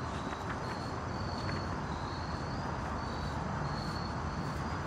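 Crickets chirping in short, repeated high trills over a steady low background noise.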